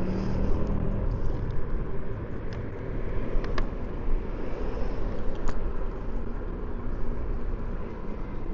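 Steady rumble of wind on the microphone and road noise from a moving electric scooter, with a couple of faint sharp clicks in the middle.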